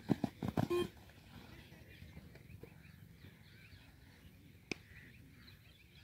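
Quick footsteps of players running in on grass in the first second, closing with a short electronic beep of the yo-yo test signal. Then faint open-air background with a single sharp click near the end.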